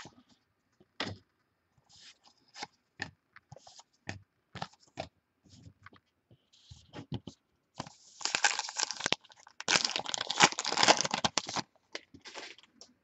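Trading cards handled and flicked through, with scattered light clicks. Then a few seconds of dense tearing and crinkling, like a card pack's wrapper being torn open, before more clicks near the end.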